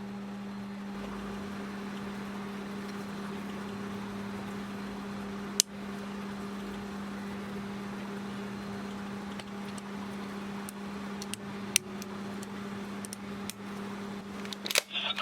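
Steady electrical hum with hiss, broken by a few sharp clicks: one about five seconds in, one near twelve seconds, and a quick run of clicks just before the end.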